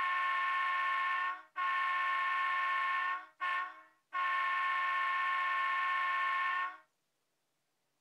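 An ESU Econami 100 diesel sound decoder in an HO-scale Proto 2000 locomotive, playing a diesel horn through a small cell-phone-type speaker. The horn blows long, long, short, long: the grade-crossing signal.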